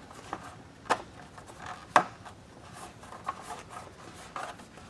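Coolant tank cap being turned onto the reservoir through a cover: a handful of sharp plastic clicks with faint rubbing between them, the loudest click about two seconds in.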